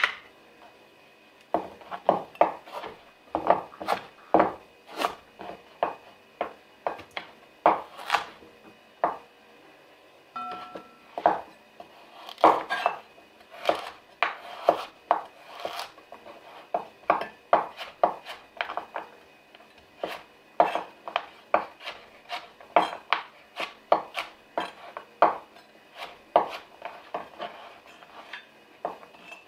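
Kitchen knife cutting a carrot on a wooden cutting board: irregular knocks of the blade on the board, a few a second, with a short pause about nine seconds in.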